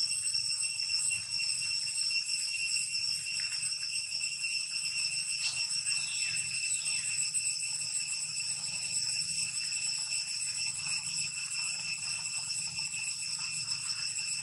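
Steady shrill insect chorus, a continuous drone held at several high pitches, with a few faint short chirps in the middle.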